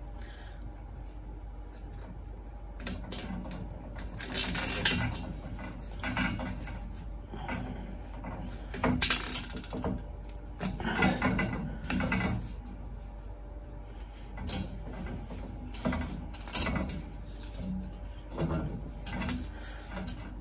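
Hand-handling noises as a nylon cable tie is threaded through a plastic conduit spacer and pulled tight around copper pipes: irregular clicks, rustles and knocks, with the tie's ratchet zipping as it tightens.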